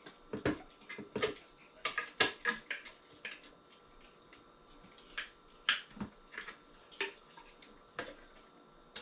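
Irregular short wet splashes and clinks of soaked soybeans and water being handled at a blender jar.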